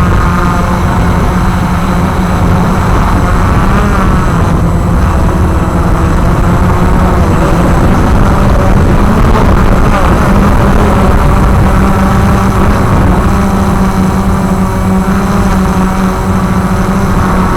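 Walkera QR X350 Pro quadcopter's electric motors and propellers buzzing steadily in flight, holding a near-constant pitch with small shifts, over a heavy low rumble.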